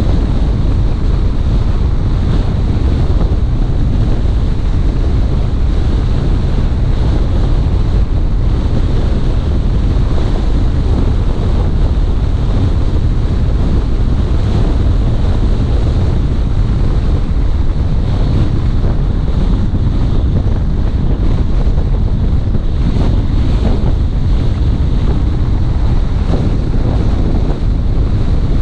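Steady wind rush buffeting the microphone over the low rumble of a car driving along a road.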